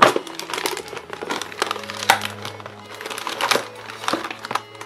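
A thin clear plastic surprise egg being pried open and handled, with irregular crackling, crinkling and clicking of the plastic shell and foil blind-bag packaging; a sharp snap right at the start and another about two seconds in. Background music plays underneath.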